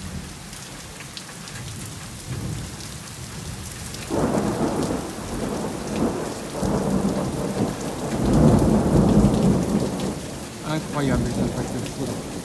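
Heavy rain falling steadily. About four seconds in, thunder breaks in suddenly and rolls on as a long rumble, loudest a little past halfway and easing off near the end.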